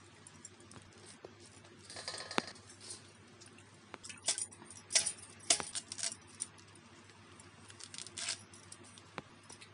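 Scattered sharp clicks and metallic clinks of okra being cut on an upright bonti blade and pieces dropping into a steel bowl, in short clusters with the loudest just past the middle, one clink ringing briefly.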